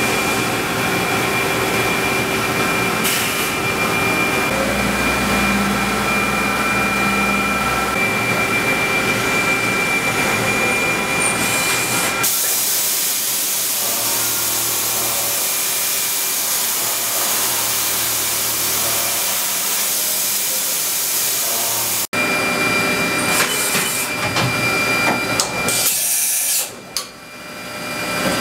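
CNC vertical milling machine running: a steady hiss with thin, high, steady whining tones. The sound changes abruptly twice and dips briefly near the end.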